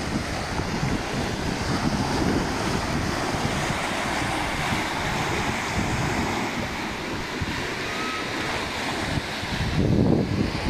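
Ocean surf washing on a sandy beach, a steady rush, with wind buffeting the microphone in low rumbling gusts, strongest near the end.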